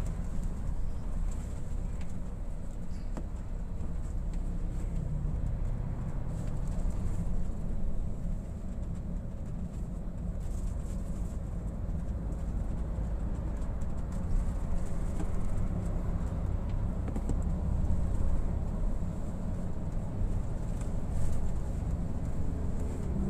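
Steady low rumble of a coach's engine and tyres, heard inside the cabin while cruising on a motorway.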